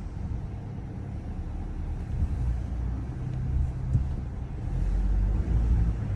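Low rumbling drone from a Cupra Formentor 1.5 eTSI, a 48-volt mild-hybrid turbo four-cylinder, heard while the car's energy-recovery mode is active. It swells louder about five seconds in. This is the odd noise the owner finds weird during energy recovery.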